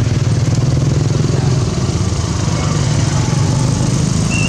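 A small engine running steadily nearby, a continuous hum with a fast even pulse. A brief high tone comes in right at the end.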